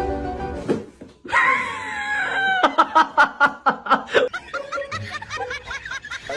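A moment of music, then a high wavering call and a person laughing hard in quick repeated bursts, tapering into softer chuckles.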